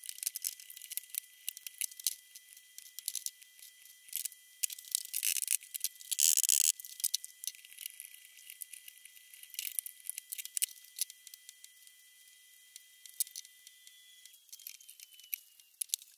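Rapid clicks, taps and rattles of metal and wooden parts and tools being handled as a small CNC frame is put together, with a louder rasping burst about six seconds in. A faint steady high whine runs underneath and fades out near the end.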